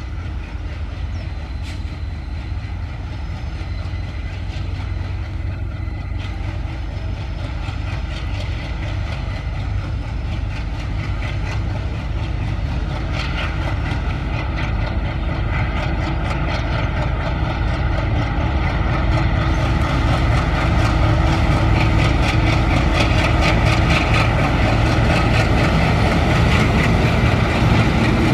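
ALCO WDM-3A diesel-electric locomotive's 16-cylinder engine chugging under power as it pulls a passenger train away, growing steadily louder as it draws near and passes close. From about two-thirds through, a fast clatter of wheels over the track joins in.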